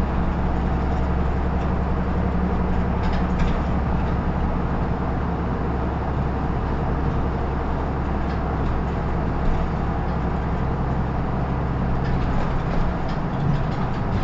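Isuzu Erga Mio (PKG-LR234N2) city bus diesel engine running, a steady low drone with road and body noise.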